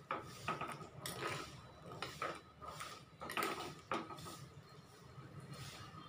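Steel ladle stirring a curd-based curry in a clay pot, scraping and knocking against the pot's sides at irregular intervals, with two louder knocks around three and a half and four seconds in.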